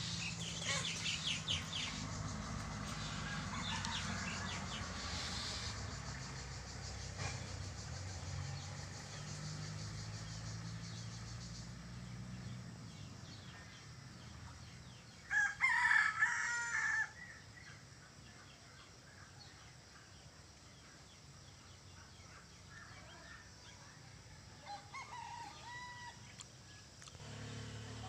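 A rooster crowing once, about halfway through, the loudest sound here, with a shorter, fainter call a few seconds before the end. A low steady hum and a high buzzing chatter fill the first half.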